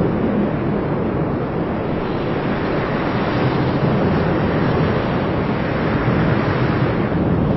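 Cumbre Vieja volcano erupting: a loud, steady rumble from the vent spewing lava, deepest at the low end, with no separate bangs.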